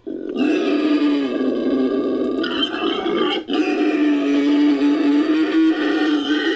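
Designed creature-vocalization sound effect built from entelodont sounds: two long, loud, steady-pitched growling calls, the second starting right after a brief break about halfway through.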